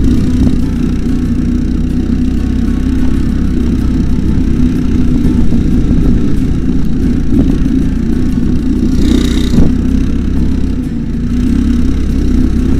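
Single-cylinder 200 cc Honda GX200-clone engine of an off-road buggy go-kart running steadily while driving over rough ground, with a brief hiss about nine seconds in.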